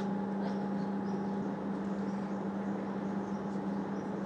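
A steady low hum with a weaker higher tone, with faint, short high-pitched chirps scattered over it.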